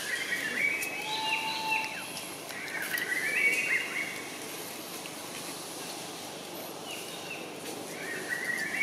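Birds chirping in short runs of quick rising and falling notes, with pauses between the runs and one held whistled note near the start, over a steady outdoor hiss.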